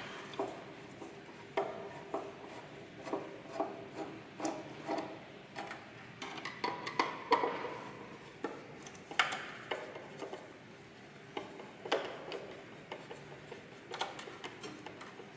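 Hand disassembly of electronic equipment: irregular clicks, clinks and knocks of tools and metal parts being handled, with a few short scrapes and rubbing noises.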